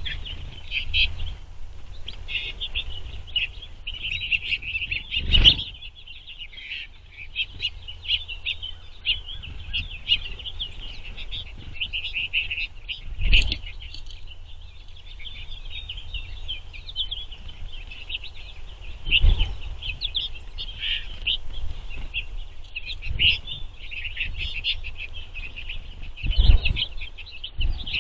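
A flock of finches twittering and chattering steadily, many overlapping high calls. A dull thump comes four times.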